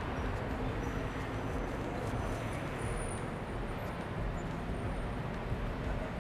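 Steady city street background: a low traffic rumble and general outdoor hum, with a few faint clicks and thin high tones.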